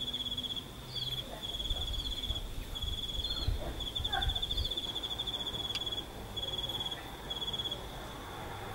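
Cricket-like insect trilling, a high, rapidly pulsed note held at one pitch in runs of about a second with short gaps between them. A few faint short chirps sound over it.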